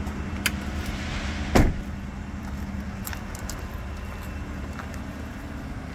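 2021 Ford F-150's door shut with one heavy thump about one and a half seconds in, after a lighter click, over a steady low hum.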